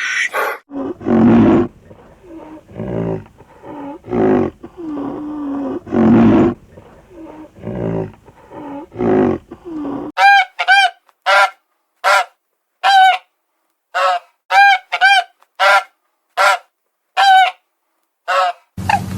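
Animal calls: low, grunting calls at about one a second for the first ten seconds. Then about a dozen short, high-pitched calls follow at roughly one and a half a second.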